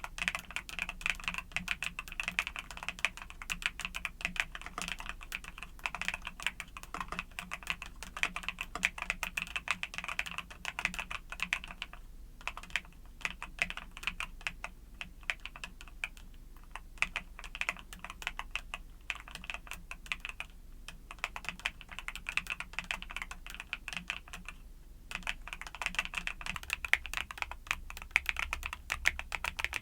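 Steady fast typing on a YUNZII mechanical keyboard with Cocoa Cream switches: a dense run of key clacks, broken by a few short pauses.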